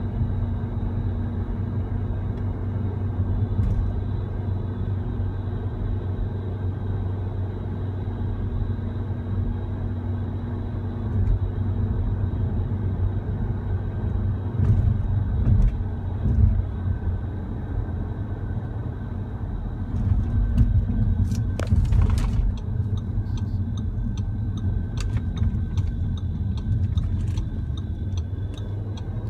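Audi RS Q3 cabin noise while driving: steady road and engine rumble with a faint steady whine. About halfway through, short ticks and rattles start coming in clusters, the abnormal noise from the air-conditioning duct.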